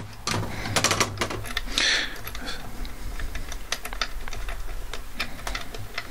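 Small metal clicks and rattles of a Lockwood 001 door lock's parts being handled and worked as it is taken off the door, with a brief scrape about two seconds in.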